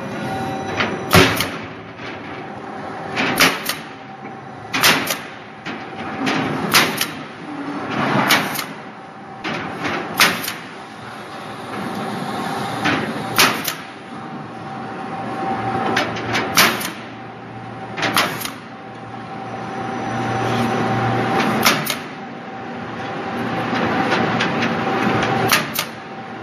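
Air-powered Kodi Klip rebar clipping tool firing clips onto rebar crossings one after another: about eleven short, sharp snaps spaced one and a half to three and a half seconds apart, some of them double, over a steady background hum.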